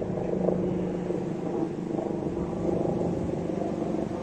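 Helicopter flying overhead, a steady drone.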